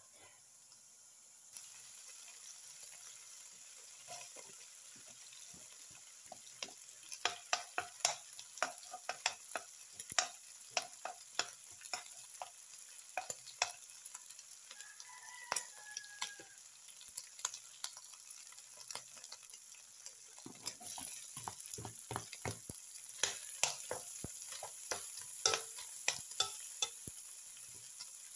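Diced pork frying in a nonstick wok with a steady sizzle, while a metal spatula stirs it, scraping and clicking against the pan in runs of quick strokes.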